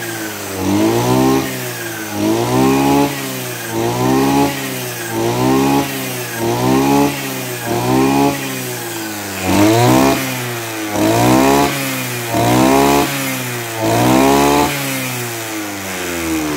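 Maruyama BCS32 brush cutter's 32cc two-stroke engine revving up and dropping back, over and over about every one and a half seconds, its blade spinning.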